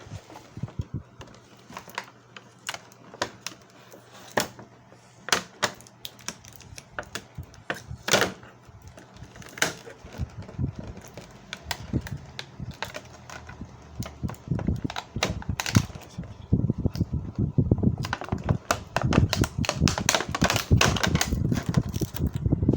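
Handling noise from unboxing a boxed figure: scattered clicks and taps of the packaging being handled, turning into a dense, louder run of rapid clicking and rustling about halfway through.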